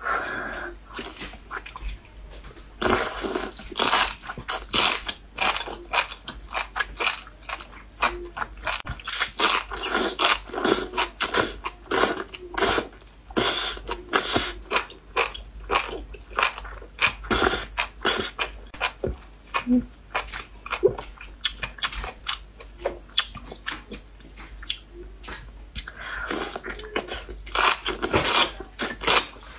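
A person slurping and chewing enoki mushrooms in broth, close-miked: many short wet slurps and crunchy bites in an irregular run, denser in places.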